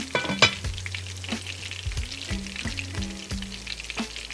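Fish cakes frying in shallow oil in a cast iron skillet: a steady crackle with frequent small pops. Background music with a low bass line plays under it.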